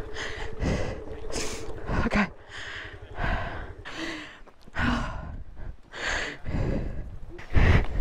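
A person breathing hard close to the microphone, in quick heavy breaths about one or two a second: out of breath from exertion.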